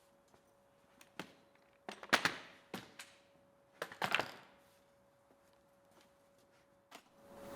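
A few knocks and clatters of wooden pieces, MDF strips, being handled and set down on a bench. Two short clusters about two and four seconds in are the loudest.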